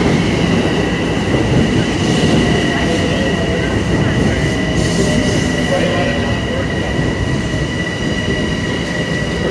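Train running past close by: a loud, steady rolling rumble with a high, steady squeal held over it throughout.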